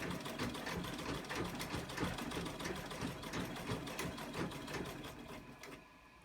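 1980s Janome treadle sewing machine stitching steadily through several layers of cotton linen, with a rapid, even run of needle-and-mechanism clicks. It is freshly oiled and smooth-running, and it slows and stops near the end.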